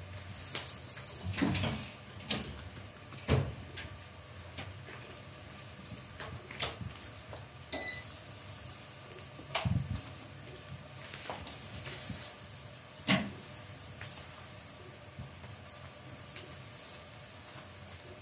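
Hands folding and pinching soft dough pastries on a floured wooden board: scattered soft knocks, taps and rustles every second or two over a low steady hum, with a brief high ping about eight seconds in.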